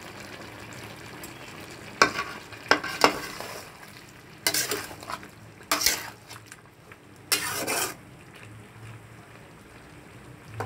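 Metal spatula stirring and scraping a thick potato, papaya and soybean curry in an aluminium kadai: a few sharp clinks against the pan about two to three seconds in, then three longer scrapes through the middle. A faint sizzle of the curry cooking runs underneath.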